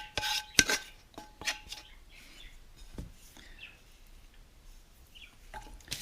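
Utensil clinking against a dish several times in the first second and a half, then faint handling sounds.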